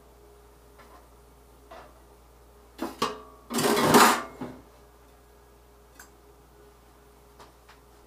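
Cookware clattering in a stainless-steel kitchen sink as a frying pan and spatula are put down in it: a few light knocks, then a louder clatter and scrape about three seconds in that lasts over a second.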